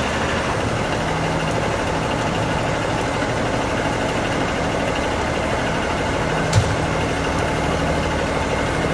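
Truck engine idling steadily, with one sharp knock about two-thirds of the way through.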